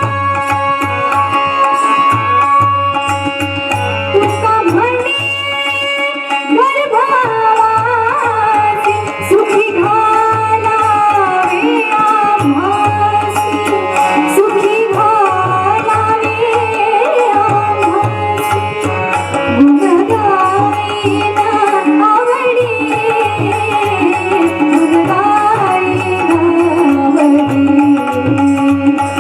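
A female voice singing a Marathi devotional abhang in an ornamented, gliding melody over a steady hand-drum rhythm; the voice comes in a few seconds in, after held instrumental notes.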